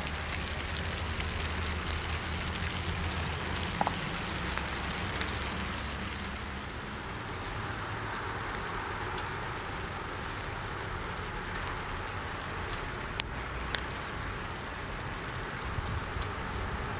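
Food frying in hot oil: a steady sizzle with a few sharp pops scattered through it.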